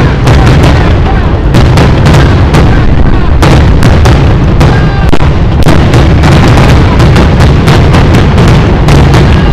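Aerial fireworks shells launching and bursting in a dense, overlapping barrage: sharp bangs several times a second over a constant heavy low rumble, very loud.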